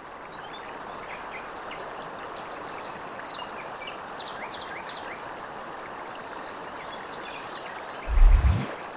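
Steady rush of running water with many short bird chirps scattered over it. A loud, deep boom comes about eight seconds in.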